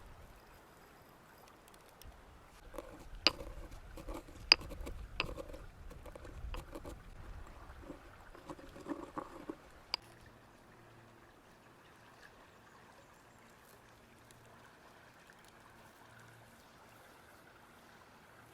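Food-preparation handling sounds: a run of knocks and rustles with several sharp clicks over about seven seconds, then only a faint steady background.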